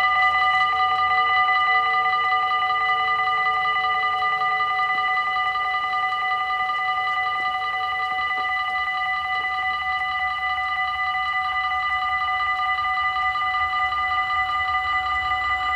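Dutch level-crossing warning bells ringing continuously, a steady rapid multi-tone ring. A faint falling whine comes from the barrier arms lowering in the first few seconds. A low rumble of an approaching train begins to grow near the end.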